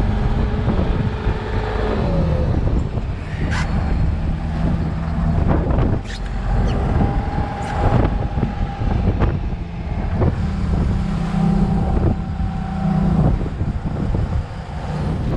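Fishing boat's engine running steadily with a low drone, with sharp knocks now and then.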